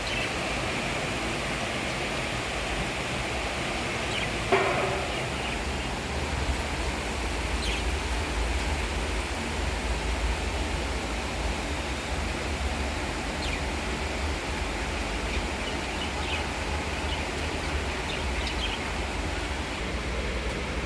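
Steady hiss of monsoon rain falling, with a low rumble underneath from about six seconds in. A bird gives a short falling call about four and a half seconds in, and a few faint chirps come later.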